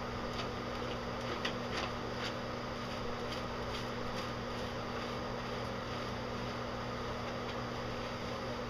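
Steady low mechanical hum, like a room fan. Over it, during the first few seconds, come soft wet squishing sounds of hands working shampoo lather into a wet Old English Sheepdog's long coat.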